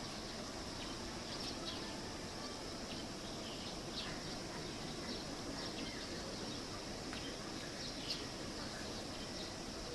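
Outdoor ambience: many short high bird chirps scattered over a steady hiss.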